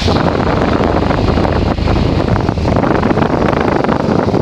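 Casablanca Lanai ceiling fan running on high, around 300 RPM, its downdraft buffeting the microphone as loud wind rush that jumps up suddenly at the start.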